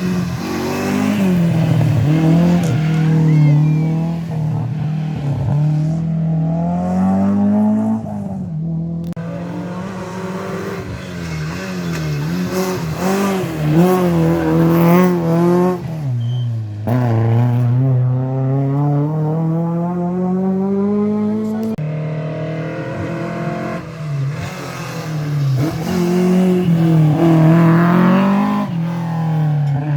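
Rally car engines revving hard at stage speed, pitch climbing through each gear and dropping at the changes. The sound breaks off abruptly a few times as one car gives way to the next.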